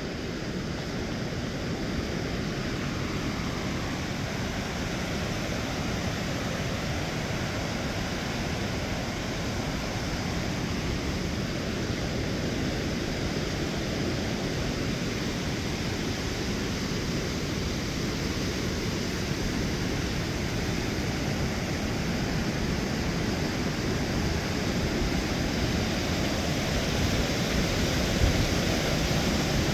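River water pouring over a low weir and churning in the whitewater below: a steady rush that grows louder toward the end.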